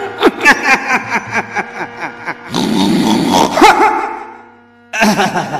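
Voices over sharp, irregular beats, then a rough growling cry from a man acting out possession by a deity. It fades away before a sudden cut.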